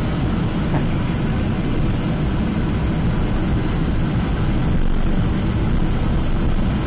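Steady cabin noise inside a Cessna Citation CJ3 business jet taxiing: the even rush of its twin Williams FJ44 turbofan engines with a low rumble underneath.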